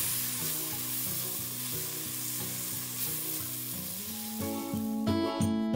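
Chopped onion and garlic sizzling in hot oil in an enamel stockpot as they are stirred with a spatula, sautéed with ground pepper and fish sauce as the base for a soup.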